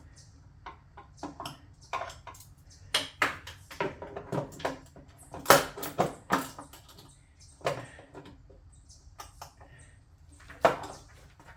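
Hand tools and metal parts of an ATV being worked on, clinking and knocking in an irregular string of sharp clicks, the loudest about halfway through.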